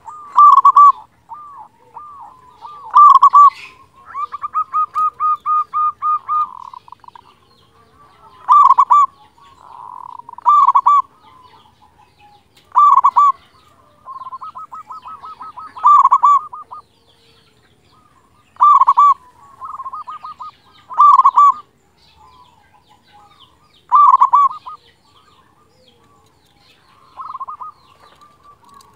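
Zebra dove (perkutut) cooing: loud phrases of a few notes repeated every two to three seconds. About four seconds in comes a fast run of about a dozen short even notes, and a softer run of notes follows in the middle.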